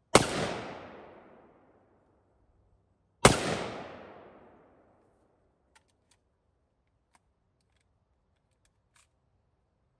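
Two rifle shots from a scoped AR-15, about three seconds apart, each report ringing out and trailing off over about a second and a half. A few faint small clicks follow.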